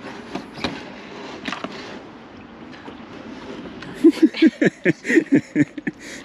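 A caravan cassette toilet being emptied: a few clicks and knocks as it is handled, then liquid glugging out in quick pulses for about two seconds near the end.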